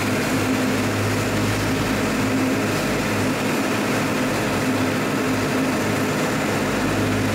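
Engine of an amphibious DUKW tour vehicle running steadily as it cruises on the water, a constant low drone with a steady hum under a hiss of water and wind noise.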